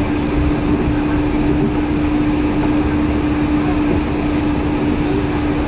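Yurikamome 7300-series rubber-tyred automated guideway train running steadily, heard from inside the car: an even low rumble with a steady hum.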